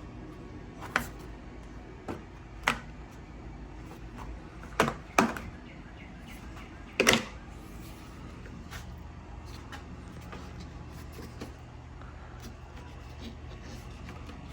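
Plastic window-frame trim on a BMW E60 rear door being pried and peeled off: several sharp clicks and snaps from the trim and its clips, the loudest about seven seconds in, over a steady low hum.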